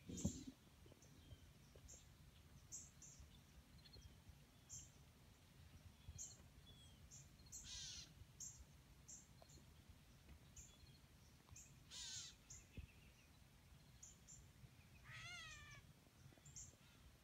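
Faint, harsh bird calls, one near 8 seconds and one near 12 seconds, then a quick run of calls near 15 seconds, over small high ticks that repeat irregularly. A single knock sounds at the very start.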